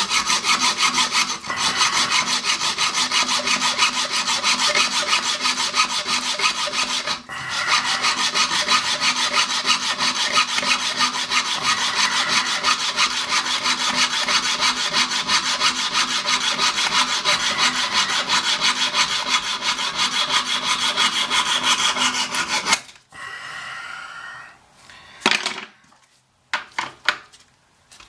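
Hacksaw blade cutting through a metal toilet closet bolt above its nut, with rapid, steady back-and-forth strokes and a brief pause about seven seconds in. The sawing stops about 23 seconds in, and a few light knocks and taps follow.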